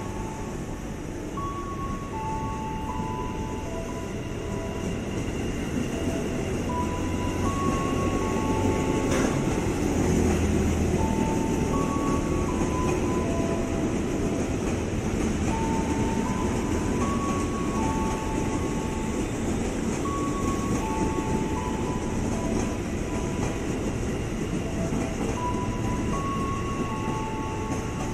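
Electric commuter train, an ex-JR 205 series set, rolling past on the station tracks: a steady rumble of wheels and running gear that swells over the first few seconds and is loudest around ten seconds in, with a single sharp click about nine seconds in. A faint tune of short notes repeats over it throughout.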